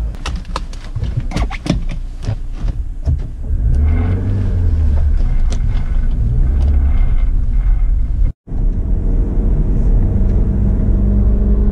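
Small 4x4's engine running, heard from inside the cabin, with a run of clicks and rattles over the first few seconds. It then settles into a steady, heavier drone as the car pulls away in gear. The sound cuts out for a split second about eight seconds in.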